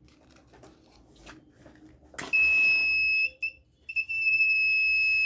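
Buzzer of a homemade BC548B transistor fire-alarm circuit sounding a steady high-pitched tone as the sensor is triggered, showing the circuit works. A click about two seconds in, then the tone starts, drops out briefly about a second later and comes back steadily.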